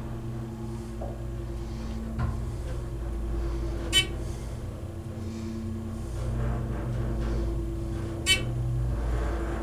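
Dover Oildraulic hydraulic elevator travelling upward: a steady hum from the hydraulic system, with two short, bright chimes, one about four seconds in and another near the end.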